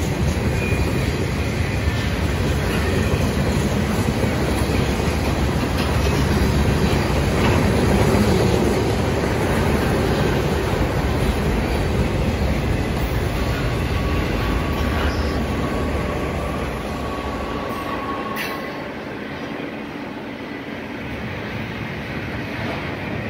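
Freight train of open-top freight cars rolling past close by: a steady rumble of steel wheels on the rails with light clicking over the joints. A faint, thin wheel squeal runs for a few seconds past the middle, and the noise eases a little near the end.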